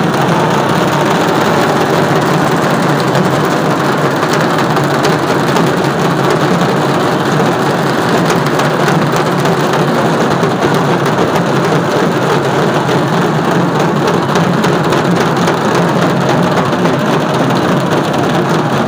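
Dense, continuous dhak drumming with crowd noise, so loud that it overloads the phone microphone and blurs into a steady wash of noise with a fast drumming texture.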